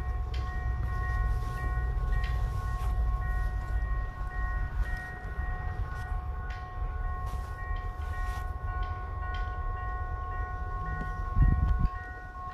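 Railroad grade-crossing bells ringing steadily over the low rumble of an approaching train, with a short low thump near the end.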